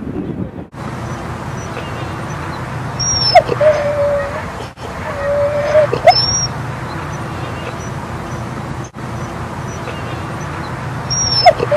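Siberian husky whining: three short calls, each starting with a quick flick in pitch and settling into a brief held note.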